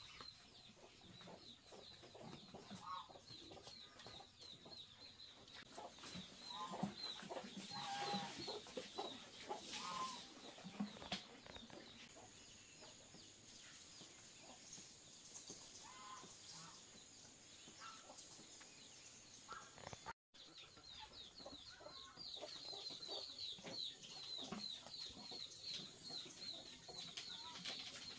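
Chickens clucking quietly and intermittently, most between about three and eleven seconds in, over a steady run of rapid high chirps.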